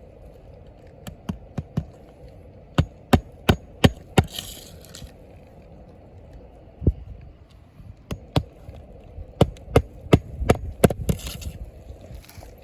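Sharp hammer blows driving roofing nails into asphalt shingles, in quick runs of three or four strikes, with short pauses between nails.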